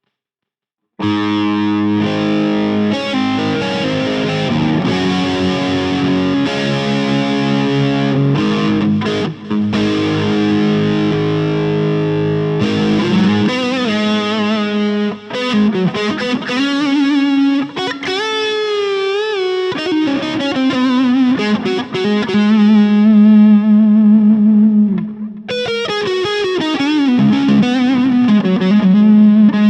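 Electric guitar, a 2011 Gibson Les Paul Gold Top with Celentano pickups, played through distortion. It starts about a second in with held, ringing chords, then moves into a lead line with string bends and vibrato.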